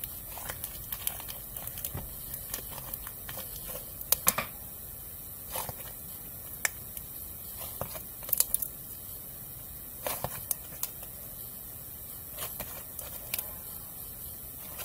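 Lotion-softened slime being kneaded and stretched between the hands, giving irregular wet clicks and pops.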